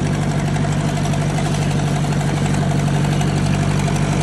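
1956 Ford 800 tractor's four-cylinder gasoline engine running steadily and quietly while the tractor drives along.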